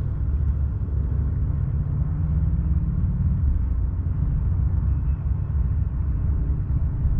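Low, fluttering rumble of wind buffeting the microphone over open water.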